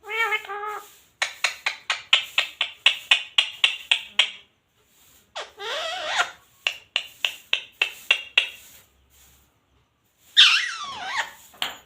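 Indian ringneck parrot calling: a short wavering call, then a rapid run of sharp, high squawks about five a second. After that come a bending call, another run of short squawks, and a falling call near the end.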